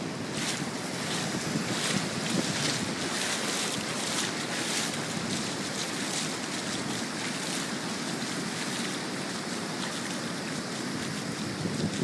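Ocean surf breaking and washing up the beach, a steady rushing wash, with wind buffeting the microphone.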